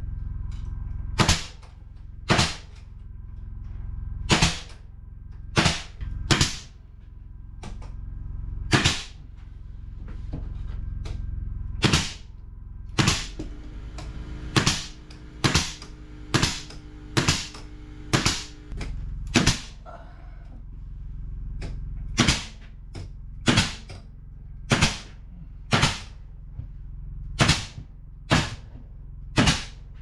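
Pneumatic trim nailer firing nails one at a time into wood trim, with sharp shots at an uneven pace, about twenty in all and coming quickest about halfway through. A steady low hum runs underneath.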